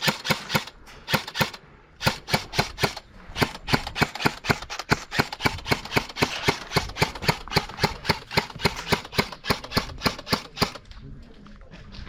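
Airsoft gun firing a long string of single shots, about three or four a second with some quick doubles, stopping about eleven seconds in.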